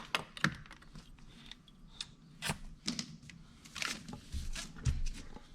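Plastic Lego pieces being handled: scattered small clicks and rustling, several separate strokes a second or so apart.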